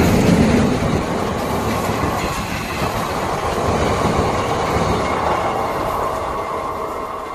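Indian Railways passenger train's coaches running through the station without stopping, wheels clattering over the rails. It is loudest at the start and eases off slightly as the last coaches move away.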